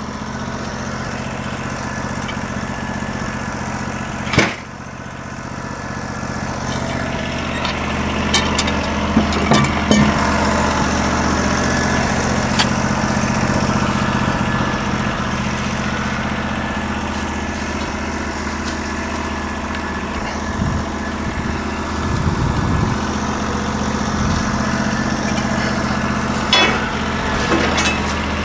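The 16 hp engine of a Norwood LM29 portable sawmill running steadily. A sharp clank comes about four seconds in, with a few lighter knocks later.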